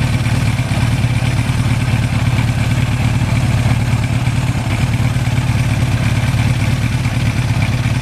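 1982 Suzuki GS1100's inline-four engine running steadily at an even speed, with no rise or fall in pitch.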